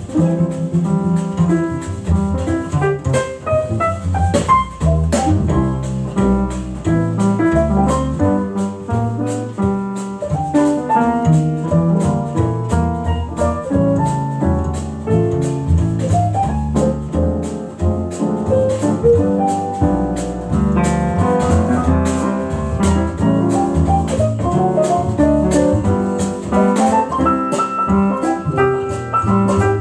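Freshly tuned Rönisch upright piano played continuously, full chords and a melody over a moving bass line.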